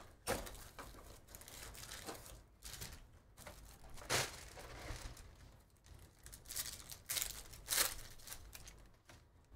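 Plastic wrapping and foil trading-card packs crinkling and rustling in irregular bursts as a hobby box is opened and its packs handled, with sharper tearing sounds near the end as a foil pack is ripped open.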